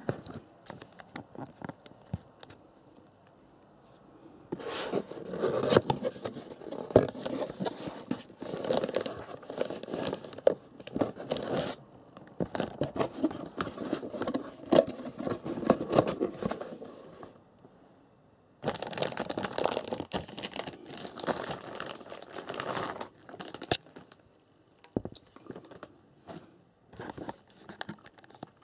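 Clear plastic packaging bag crinkling and rustling as it is handled and pulled off a black RC pit stand, in three long stretches of rustling, then a few light knocks near the end.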